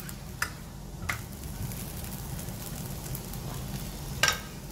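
Chapati frying in oil on a flat tawa with a steady sizzle. A steel spatula clicks against the pan three times, the loudest near the end.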